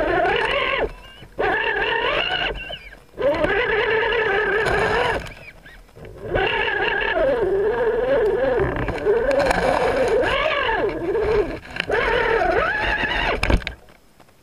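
RC rock crawler's electric drive motor and gears whining in about five throttle bursts with short pauses between them. The pitch wavers up and down with the throttle as the crawler works through brush and over rock, and the whine stops shortly before the end.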